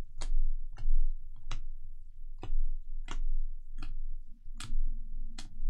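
Hard plastic toploader card holders clacking against each other as a stack of trading cards is flipped through one at a time: about eight sharp clicks, roughly one every three quarters of a second.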